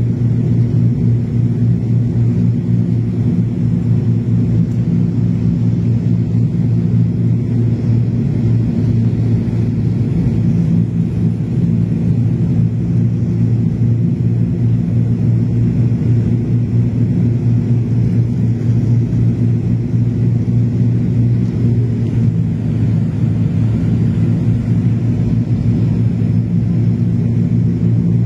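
Steady drone of a turboprop airliner's engine and propeller heard inside the passenger cabin on final approach to landing: a loud low hum with several fixed tones that does not change.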